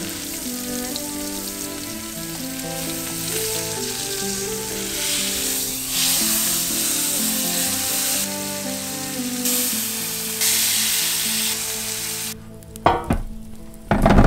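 Tri-tip beef roast sizzling steadily as it sears in a hot pan. Near the end, a short knock and then a loud tumble of baby potatoes pouring into a metal roasting tray.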